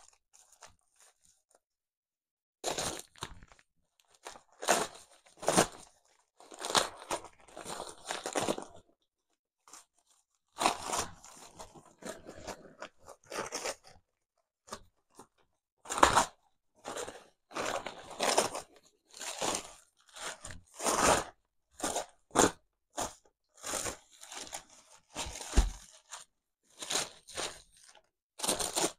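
Brown wrapping paper crinkling and rustling in irregular bursts as it is pulled off a rifle, starting about two and a half seconds in.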